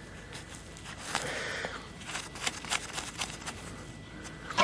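Soft scraping and a scatter of light clicks from soil and a small metal button being handled by hand, with a brief rustling scrape about a second in.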